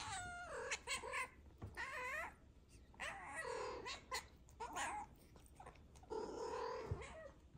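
Domestic cat meowing repeatedly, a string of about six calls that bend up and down in pitch, some short and some drawn out, the longest near the end.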